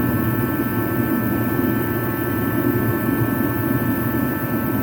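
Craftsman 80,000 BTU kerosene/diesel forced-air heater running on high: a steady, loud fan noise with the burner firing, and a steady whine of several tones over it.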